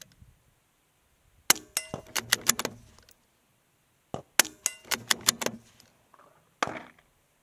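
Suppressed .22 LR bolt-action rifle (Savage Mark II FV-SR with a Dead Air Mask suppressor) firing Aguila subsonic rounds: three quiet shots two to three seconds apart. Each shot is followed by a quick run of metallic clicks and pings.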